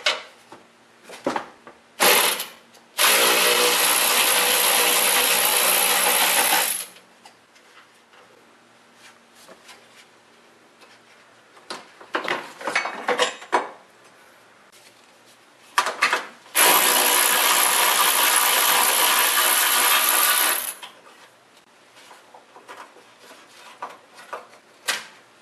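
Cordless power driver spinning out 10 mm bracket bolts: two steady runs of about four seconds each, one a few seconds in and one past the middle. Light clicks and clinks of the bolts and metal brackets being handled come between them.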